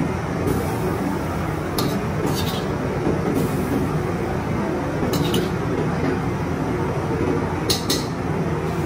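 A metal ladle clinking against porcelain bowls as broth is ladled in: a few light clinks, singly and in pairs. Under them runs a steady kitchen din.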